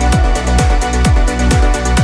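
Electronic dance music with a steady, fast beat, about two low beats a second, over sustained synth tones.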